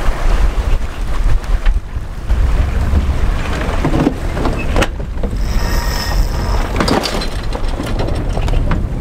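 Strong wind buffeting the microphone on a sailing yacht under way in a fresh breeze, with the rush of the boat through the water and scattered knocks. A brief high-pitched whine sounds a little past the middle.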